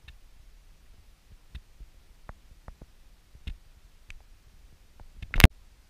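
Quiet background with scattered faint clicks, and one louder knock about five and a half seconds in.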